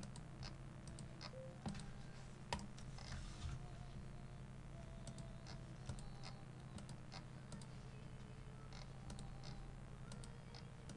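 Faint, irregular clicking of a computer mouse and keyboard over a low steady hum.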